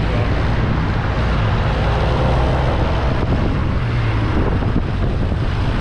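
Wind rushing over the microphone of a camera on a moving motor scooter, with the scooter engine's low drone underneath, from riding in city traffic.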